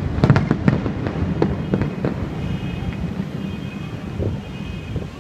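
Aerial fireworks shells bursting in quick succession. The bangs come thick for about two seconds, then thin out to a few scattered pops over a low rumble as the barrage tapers off.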